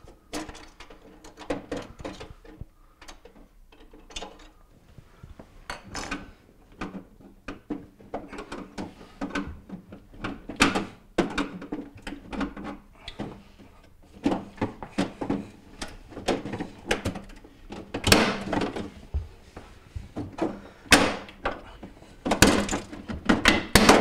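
Irregular plastic clicks, snaps and knocks as a refrigerator's thermistor cover and air deflector are pried with a screwdriver and pulled off the inner back wall. The loudest knocks come in the last few seconds, as the deflector comes away.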